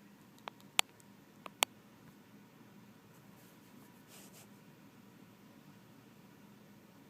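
Sleeping pit bull snoring softly: four sharp clicking snorts in the first two seconds, then a faint breathy exhale about four seconds in, over a low steady hum.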